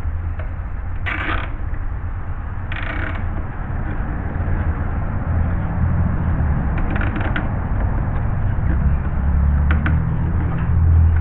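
Ratchet strap being tightened: the ratchet mechanism creaks and clicks in a few short spells, about a second in, around three seconds in and again later, over a steady low rumble.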